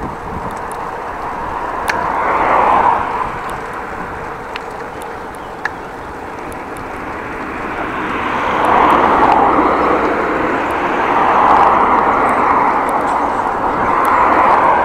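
Vehicles passing close by on the road: a whoosh of tyre and engine noise swells and fades about four times, over a steady background of road noise while cycling.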